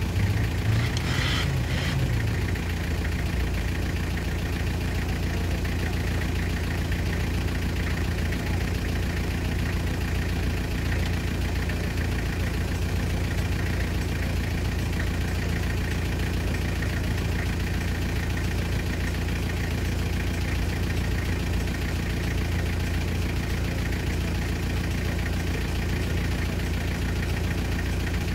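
Off-road 4x4's engine idling steadily, a low even hum with no revving.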